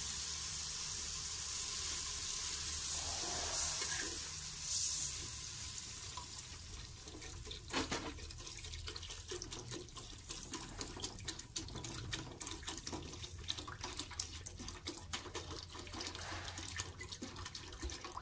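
Sautéed onion, garlic and tomato sizzling in an aluminium pot, giving way about six seconds in to water poured from a plastic bottle into the hot pot, a continuous splashing pour that runs until near the end.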